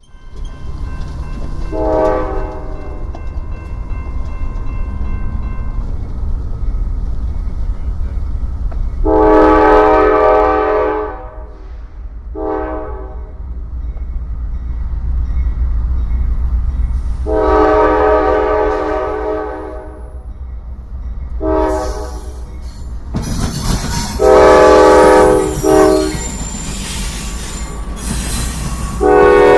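Norfolk Southern freight locomotive's multi-chime air horn sounding a series of blasts, some short and some held for two or three seconds, over the steady rumble of diesel engines. From about three-quarters of the way in, the locomotives draw close and the noise of engines and wheels on rail grows loud.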